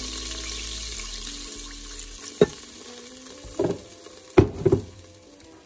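Red wine pouring into the hot pressure cooker pot where beef was just sautéed, hissing and sizzling as it deglazes the pot, then fading off. A few sharp knocks come later, one about halfway and three near the end.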